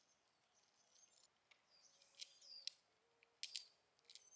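Birds calling faintly: a few sharp high chips and short falling whistles, most of them in the second half.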